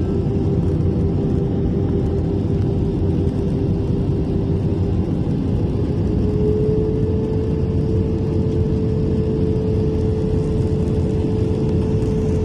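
Jet airliner cabin noise in flight: the steady drone of the turbofan engines and airflow heard from inside the cabin, with a steady hum that steps slightly higher in pitch about halfway through.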